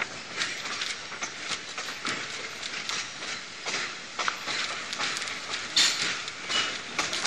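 Wheels of an excursion train's passenger coach rolling over jointed track and yard switches: a steady rush of running noise with irregular clicks and clanks, one louder clank about six seconds in, and a short high squeal just after it.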